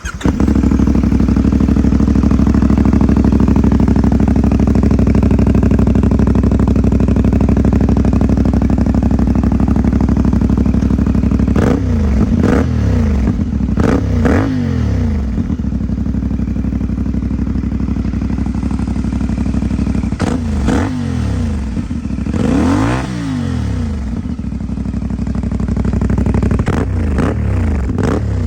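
CFMOTO 450MT motorcycle's parallel-twin engine and exhaust idling steadily, then revved with a series of throttle blips from about twelve seconds in, each rising and falling back to idle, the biggest rev a little past the twenty-second mark.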